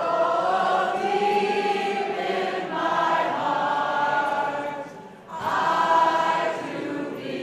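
A crowd of voices singing together in long held phrases, with a short break about five seconds in before the singing picks up again.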